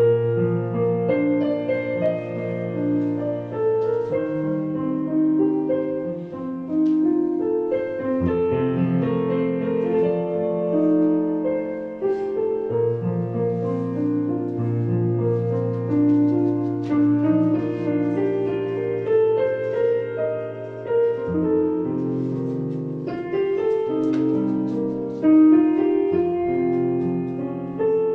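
Piano music: a slow melody over long-held bass notes, starting suddenly out of near silence.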